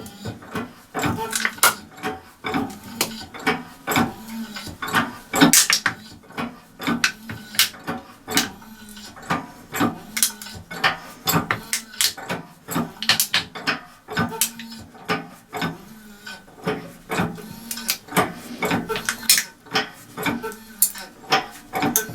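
Hand-operated hydraulic press pump being worked: repeated metallic clicks and clanks of the pump lever and linkage, roughly one to two a second.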